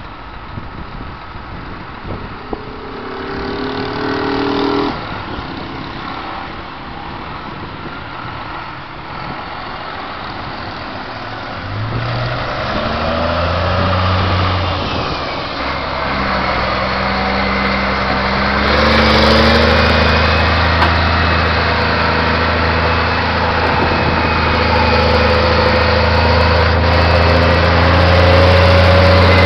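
Vehicle engine running with a deep, steady rumble. It starts about twelve seconds in and grows louder through the second half.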